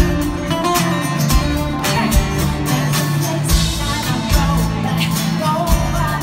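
Live pop band playing: strummed acoustic guitar and drums, with a woman singing over them.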